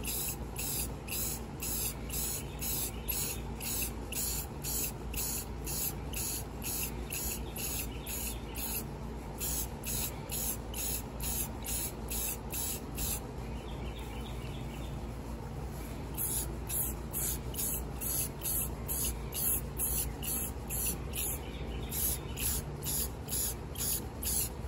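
Aerosol spray-paint can hissing as paint is sprayed onto tiles, in a quick pulsing rhythm of about two or three pulses a second. The pulses ease off for a few seconds partway through.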